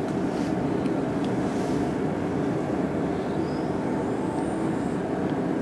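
Steady hum and rushing noise inside a standing Stockholm Metro C14 car, from the train's running auxiliary equipment while it waits at the platform, with a few faint steady tones in the hum.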